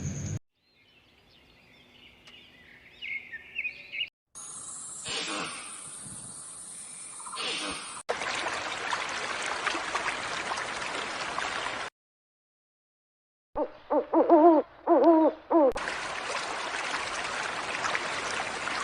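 A string of short, separately cut animal-sound clips. Faint high tones come first, then a steady hiss, and after a silent break a quick run of about five short pitched calls, the loudest part, followed by more steady hiss.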